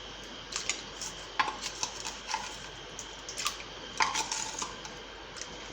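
Metal spoon clinking against a cooking pot while ingredients are added: a dozen or so light, irregular clinks, some ringing briefly.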